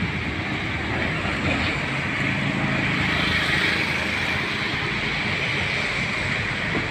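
A motor vehicle passes on a wet road. Its engine hum and tyre hiss swell from about two seconds in and fade again, over steady wind noise on the microphone.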